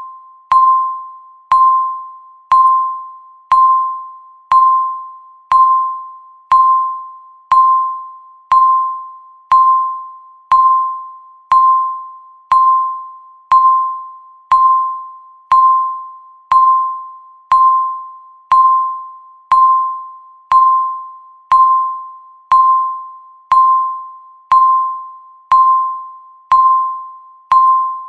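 Countdown timer beep: a single clear tone that starts sharply and fades like a chime, repeated evenly once a second, marking each second counted down.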